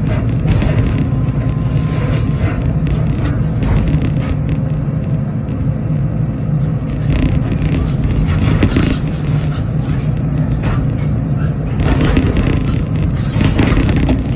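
Excavator's diesel engine running steadily under load, with irregular crunches and scrapes of concrete debris.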